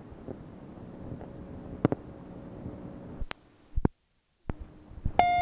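Playback of a tape answering machine's incoming-message cassette between messages: steady tape hiss with a faint hum and a few sharp clicks. The recording drops out to near silence for about half a second just before the four-second mark. Near the end comes a steady electronic beep of about half a second, marking the start of the next message.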